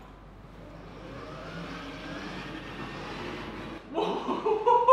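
Self-following electric suitcase's motorised wheels rolling across a tiled floor as it trails its owner, a steady rolling noise. Near the end a man's voice breaks in with a short exclamation.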